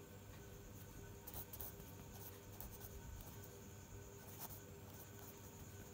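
Marker pen writing on paper: faint, irregular scratching strokes.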